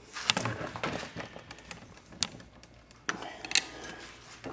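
Scattered clicks, knocks and scrapes of hand work on metal parts of an opened Ford C4 automatic transmission on the bench, with one sharp click about two seconds in and another cluster near three seconds.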